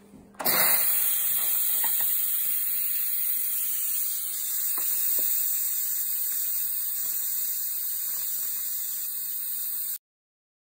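Electric pressure cooker venting steam through its pressure release valve after the pressure-cooking cycle: a loud, steady hiss that starts about half a second in and cuts off abruptly near the end.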